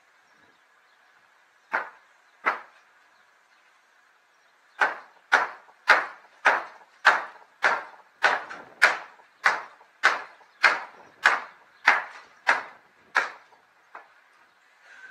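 Hammer blows on wooden roof planks: two single strikes, then a steady run of about fifteen blows, a little under two a second, with a last light tap near the end.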